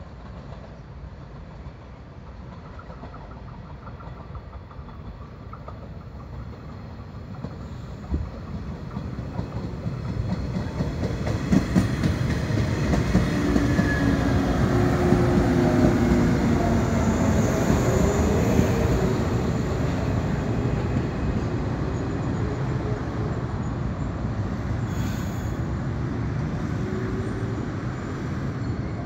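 JR West 115 series electric multiple unit (local train) approaching, growing steadily louder and clattering over rail joints as it passes close by about halfway through. It then fades as it slows to a stop at the station.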